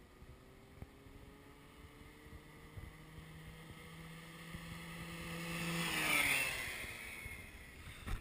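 Yamaha Jog R 50cc two-stroke scooter engine at full throttle, heard from a distance: its note climbs steadily and grows louder for about six seconds, then drops in pitch and falls away.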